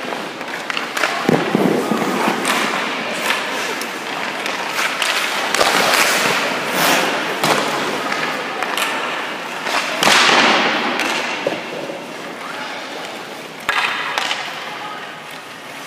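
Ice hockey skate blades scraping and carving on the ice, with several sharp knocks of sticks and pucks hitting pads, net and boards. The loudest is a hissing skate scrape about ten seconds in.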